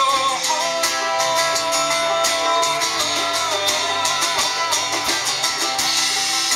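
Live country band playing an instrumental break: strummed guitars and drums, with a lead guitar line that bends its notes up and down.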